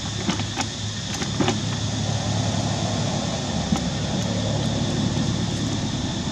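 Steady low outdoor hum or rumble with a steady high-pitched tone above it, and a few light clicks or crackles in the first second and a half.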